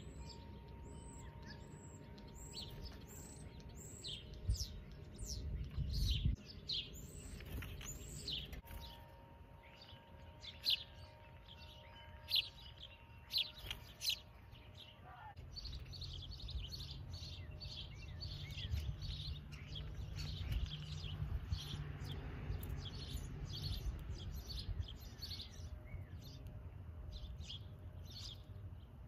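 Songbirds chirping: many short, high chirps, several a second, with a few louder, sharper notes in the first half, over a steady low outdoor rumble.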